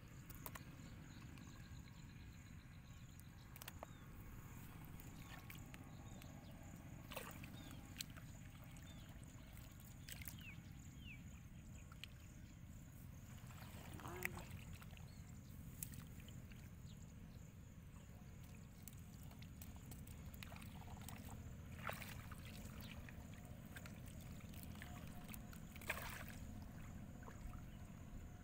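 Small splashes and sloshing of hands and fish moving in shallow muddy water, a dozen or so short ones scattered through, over a faint steady low rumble.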